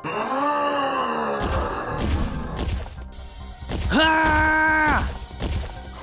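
Cartoon sound effects with music: a voice-like cry that rises and then falls in pitch, then a run of heavy thuds from about a second and a half in, then a held pitched cry lasting about a second near the four-second mark.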